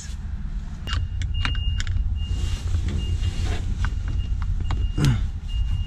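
A screwdriver working on the plastic steering-column trim of a Lexus IS200, with a few sharp clicks and knocks, over a steady low rumble. A high tone repeats in short beeps.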